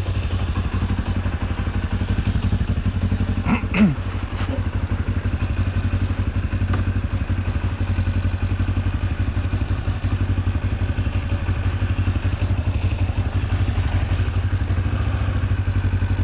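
Kawasaki KLE 400's parallel-twin engine running steadily under way, with a short sharp sound about four seconds in.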